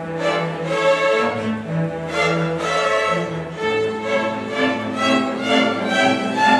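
Student string orchestra of violins, cellos and double basses playing, with a bowed bass line under the higher melody parts.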